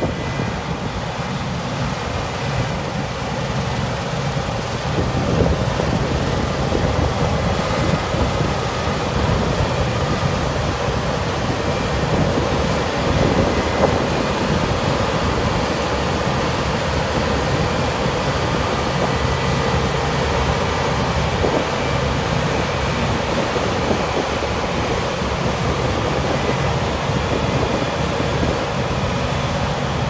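Claas Lexion 8700 combine harvester running steadily while harvesting, a continuous machinery drone with a low engine hum.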